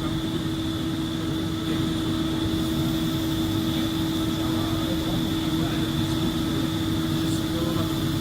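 Steady machinery hum with a constant droning tone over a low rumble, unchanging throughout.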